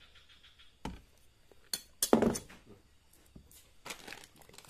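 A few separate sharp clicks and clinks of metal tools and parts being handled and set down, the loudest about two seconds in.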